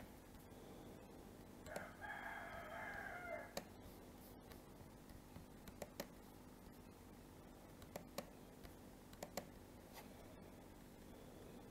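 A single drawn-out animal call about two seconds in, lasting nearly two seconds, over a faint steady hum. It is followed by a scattered handful of sharp computer mouse clicks.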